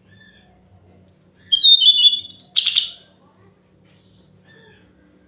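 SRDC (fulvous-chested jungle flycatcher) song: a loud phrase of quick, high whistled notes and trills lasting about two seconds, starting about a second in and ending in a short rattle. Faint single bird notes follow.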